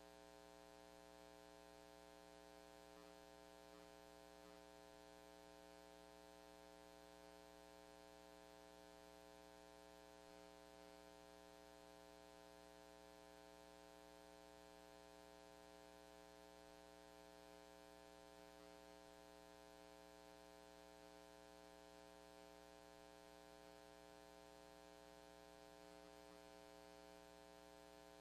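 Near silence with a faint, steady electrical hum made of many even tones, unchanging throughout.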